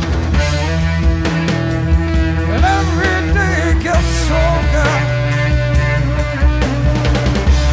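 Live power-trio blues-rock: electric guitar, bass guitar and drum kit playing together, with a lead line of bending, wavering notes about three to five seconds in over steady bass and regular cymbal hits.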